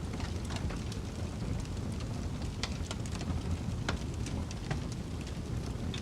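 Wood fire crackling in a fireplace, with sharp scattered pops over a steady low rumble of snowstorm wind.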